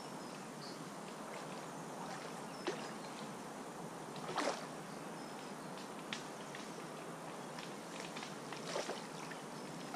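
Steady lakeside background hiss with a few short splashes of water, the loudest about halfway through.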